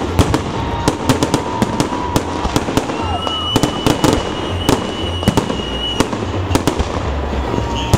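Holiday fireworks salute: a rapid, irregular string of sharp bangs from shells bursting, over a continuous low rumble. A long thin whistle runs through the middle.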